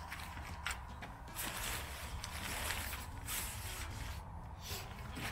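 Tent canvas rustling and rubbing as it is handled and tucked in, in several short stretches.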